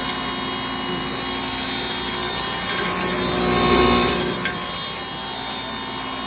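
Singhara (water chestnut) flour grinding machine running steadily with a constant whine, swelling louder for about a second a little past the middle, with one sharp click just after.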